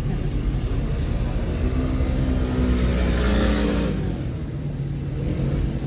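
Car cabin noise while riding in a moving taxi: the engine and tyres run steadily with a low rumble, and the engine pitch rises and falls a little through the middle.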